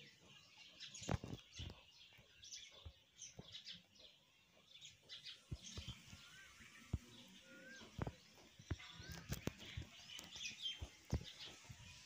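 Birds chirping in short, high calls, broken by scattered sharp clicks and knocks.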